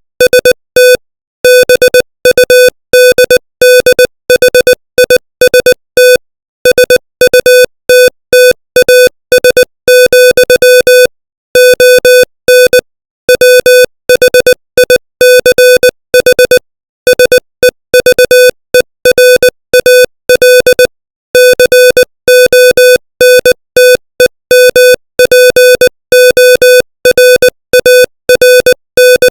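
Morse code sent at 20 words per minute: a single steady electronic tone keyed on and off in dots and dashes, with longer pauses between words.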